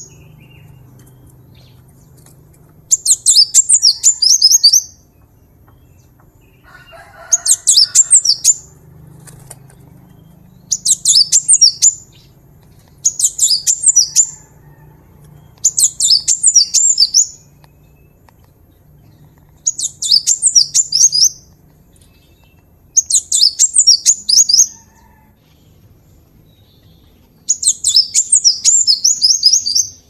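Cinereous tit (glatik batu) singing: eight phrases of rapid, high-pitched notes, each lasting a second or two, repeated every few seconds.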